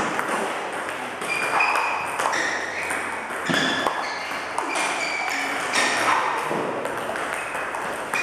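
Table tennis balls in a multiball drill: a steady run of sharp clicks as the balls strike the rackets and bounce on the table, many with a short ringing ping.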